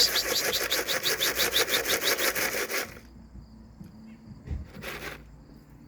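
A loud, rapid, even rattling shake, about nine strokes a second, that cuts off suddenly about three seconds in. After it there is a faint steady chirring of insects and a short thump with a hiss.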